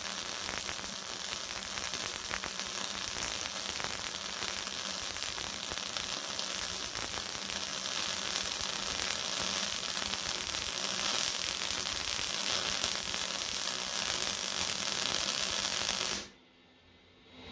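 Electric arc welding on steel plate: a steady frying crackle of the arc with a faint hum underneath, which stops abruptly about a second before the end as the arc is broken.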